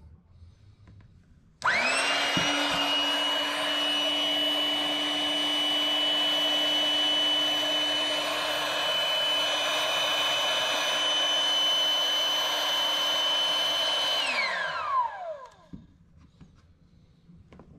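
Small electric air inflator switched on about two seconds in, running with a steady high whine for about twelve seconds. It then shuts off and spins down, its pitch falling.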